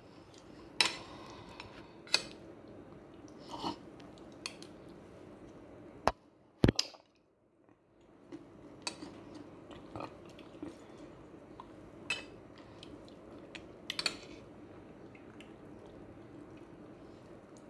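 Metal spoon clinking and scraping on a ceramic plate: scattered single clicks a second or two apart, the two sharpest about six seconds in, with soft chewing sounds between.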